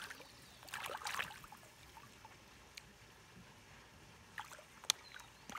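Water splashing as large fish thrash at the surface to take food. A burst of splashing comes about a second in, then a few short sharp splashes near the end.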